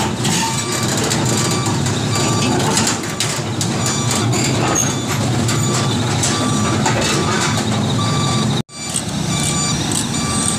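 Heavy-machinery reversing/travel alarm beeping over and over, about one short beep every three-quarters of a second, over the steady rumble of a diesel engine running. The sound drops out for an instant about eight seconds in, then the same beeping and engine go on.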